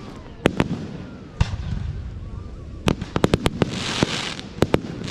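Fireworks going off: scattered sharp bangs, then a rapid string of cracks about three seconds in, followed by a hissing crackle with a few more bangs.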